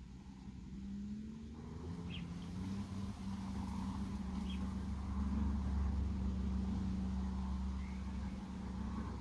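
A motor engine running steadily, its pitch rising briefly at the start, then holding as it grows louder over several seconds. A few short high chirps sound now and then.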